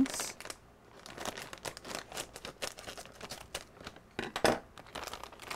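Plastic bag of frozen string beans crinkling and crackling as it is cut open and handled, with one louder rustle about four seconds in.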